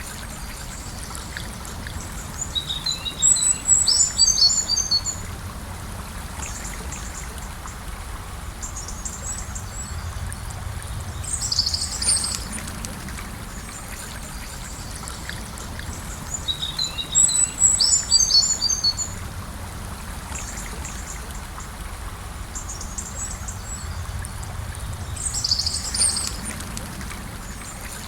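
Gentle river flowing in a steady rush, with small birds singing over it: a rapid twittering phrase about three seconds in and again about seventeen seconds in, and shorter high calls around twelve and twenty-six seconds.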